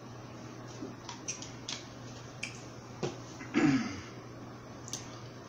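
A plastic water bottle clicking and crackling as a man drinks from it. A knock about three seconds in, as it is set down on the table, is followed by a short louder mouth sound. A steady low hum runs underneath.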